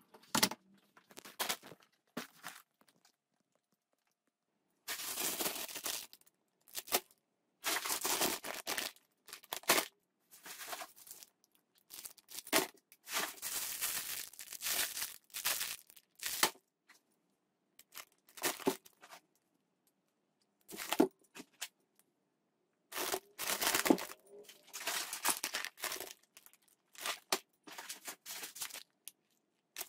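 Plastic grocery packaging crinkling and rustling as bags of spinach, tortilla chips and noodles are handled and set down, in irregular bursts separated by short silences.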